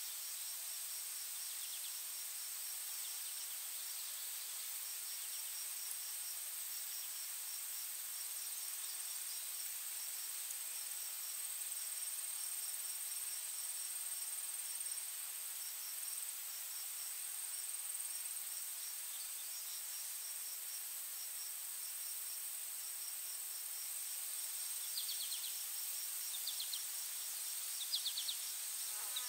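Insects trilling steadily: a constant high-pitched buzz with a fast, even chirping pulse beneath it, over a soft hiss. A few short chirps come in near the end.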